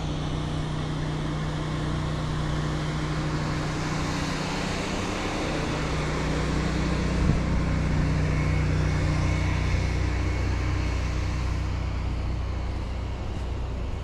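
Pressure washer running steadily: a low engine hum under the hiss of the water spray.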